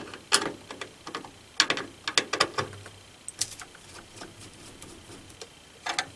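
Hands working on computer parts inside a desktop PC: a run of irregular sharp clicks and taps of plastic and metal, thickest in the first few seconds, then sparser, with a short cluster near the end.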